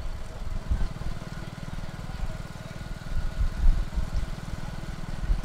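Motor vehicle engines running with a steady, fast-pulsing low rumble.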